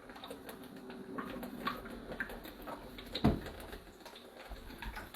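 Quiet swallowing and small mouth and bottle noises while gulping down Sprite, a run of little clicks, with one short, louder thump a little past the middle.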